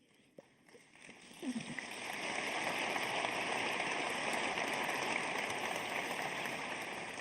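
Audience applauding in a large hall, swelling in over the first couple of seconds, holding steady, then fading near the end.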